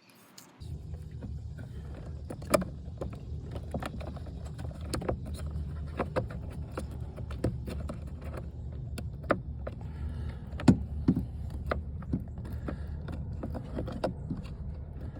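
Hands working under a dashboard, with sharp plastic and metal clicks, knocks and rattles from handling the blower motor resistor's wiring connector and tools, over a steady low rumble.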